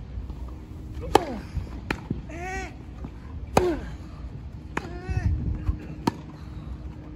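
Tennis rally on a grass court: five sharp racket-on-ball strikes spread over the few seconds, with short grunting cries from the players on some of the shots.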